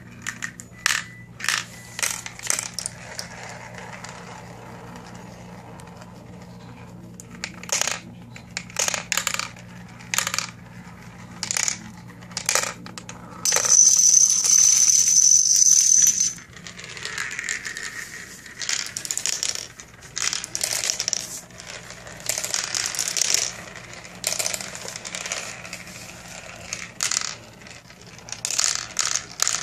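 Marbles rolling and clattering through a plastic marble-run toy, with many sharp clicks as they drop through the tubes and hit the plastic parts. About halfway through, a louder continuous rattle with a steady high ring lasts about three seconds.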